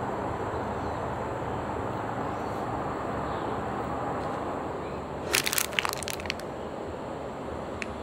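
Steady background hiss with a short burst of sharp crackling about five seconds in, lasting about a second.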